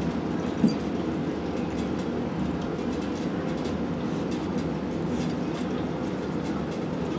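A steady low mechanical drone, with one short knock under a second in and faint scattered ticks.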